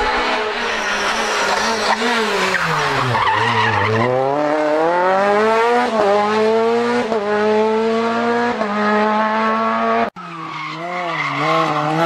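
Renault Clio R3 rally car's naturally aspirated 2.0-litre four-cylinder engine at racing revs. The revs fall away as it slows for a corner, then climb hard through three quick upshifts, each a sudden drop in pitch. The sound cuts off abruptly about ten seconds in, and another Clio R3's engine comes in with its revs wavering up and down.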